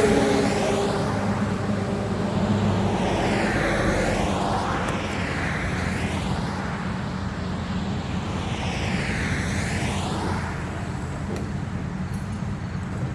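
Interstate traffic going by close to the roadside, vehicles whooshing past twice over a steady low hum.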